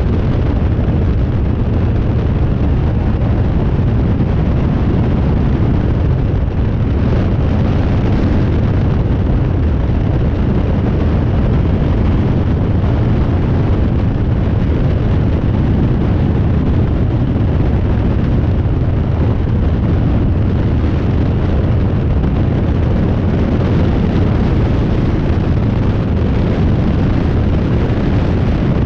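Rans Coyote light aircraft in cruise flight: the engine and propeller run with a steady low drone, mixed with wind rushing over the microphone.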